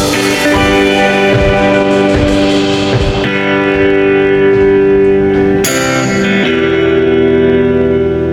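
Background music led by guitar, with sustained chords that change a few times.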